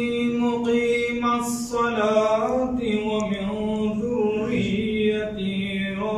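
A man reciting a Muslim prayer (dua) aloud in a melodic chant, drawing out long held notes.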